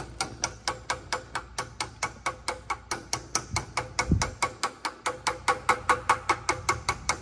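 Rapid, even hammer taps, about five or six a second, metal on metal, driving a new wheel bearing into a Jeep CJ7 wheel hub clamped in a vise.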